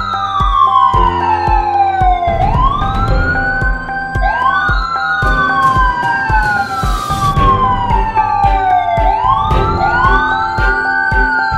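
Wailing sirens, two overlapping, each rising quickly and then falling slowly over a few seconds, over background music with a steady beat.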